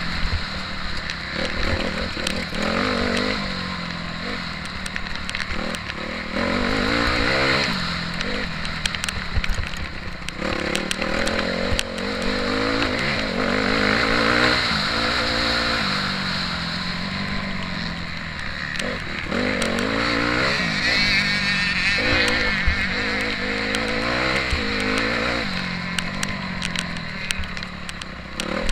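Motocross bike engine running hard, its pitch climbing and dropping again and again as the throttle is opened and closed and the gears are shifted. Frequent sharp knocks run through it.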